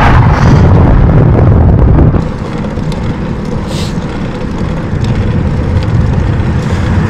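Wind buffeting the microphone of a bike-mounted action camera while cycling, a heavy low rumble that eases markedly about two seconds in.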